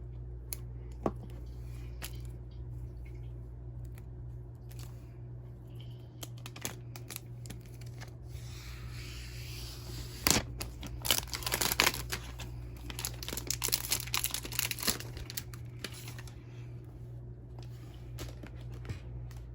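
Packaging being handled and torn open. Scattered clicks give way to a run of tearing and crinkling about ten seconds in, which lasts some five seconds.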